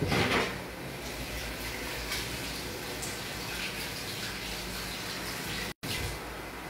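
Kitchen tap running steadily into the sink, with a short knock right at the start. The sound cuts out for an instant near the end.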